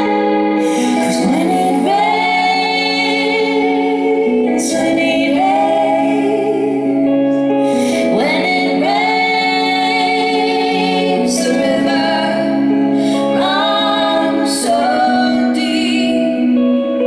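Live music: two women singing together, each phrase sliding up in pitch onto a long held note, over electric guitar and steady held notes underneath.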